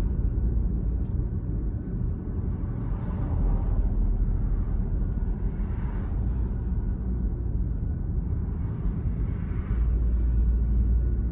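Large farm tractor's engine running with a steady, deep sound, getting louder about ten seconds in.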